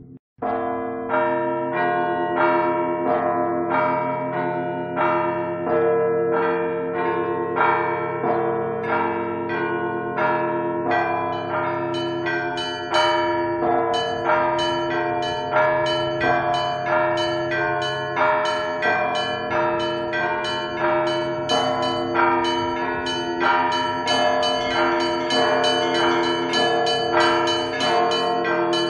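Church bells ringing a peal: strokes follow one another at about two a second, each ringing on into the next, starting just after a brief break in the sound.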